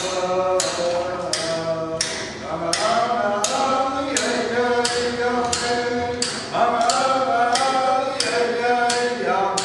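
Inupiaq dance song: a frame drum struck in an even beat about twice a second, with a group singing over it. The singing pauses briefly a little after two seconds in and picks up again, stronger, past six seconds.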